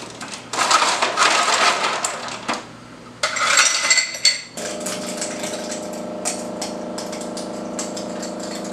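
Items being rummaged through in a freezer compartment, with rustling and clattering in two bursts, clinking in the second. About halfway through a steady electric hum starts and keeps on.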